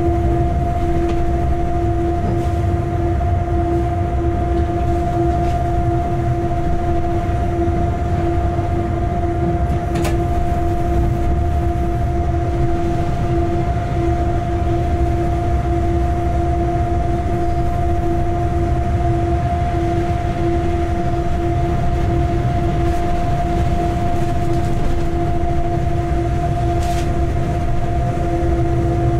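A locomotive running light at steady speed, heard from inside its cab: a continuous low rumble with two steady hum tones, one an octave above the other, and a faint click about ten seconds in and again near the end.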